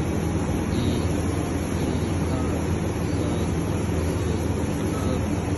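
Steady low machine hum with an even rushing noise, unchanging throughout and with no stitching rhythm.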